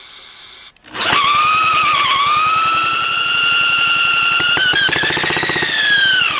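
A short hiss of starting-fluid spray, then about a second in a power drill whines at high speed, cranking the 1950s Toro Sportlawn mower's single-cylinder engine through its starter pulley. The engine's compression strokes pulse fast under the whine and the pitch sags briefly twice under load, but the engine does not fire. The drill stops abruptly at the end.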